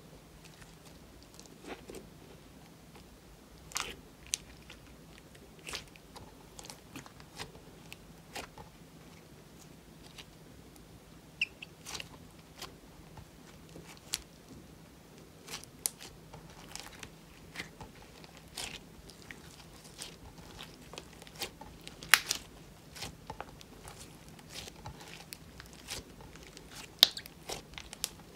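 Clear slime mixed with crushed eyeshadow and glitter being kneaded and squeezed by hand, giving irregular sticky pops and clicks. A few pops are sharper and louder, one near the middle and one near the end.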